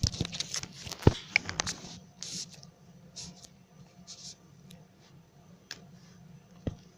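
Sharp plastic clicks and handling rustles, clustered in the first two seconds with the loudest click about a second in, then a few scattered faint clicks.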